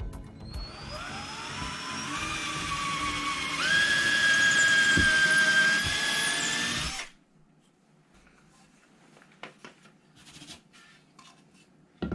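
Ryobi cordless drill boring a hole into a wall. The motor whine climbs as the trigger is squeezed, steps up to full speed and louder about three and a half seconds in, and cuts off suddenly about seven seconds in. Faint clicks and small knocks follow, with a sharper knock near the end.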